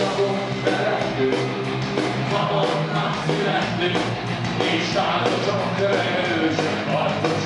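Live rock band playing loudly: electric guitar, bass guitar and drums, with a steady beat.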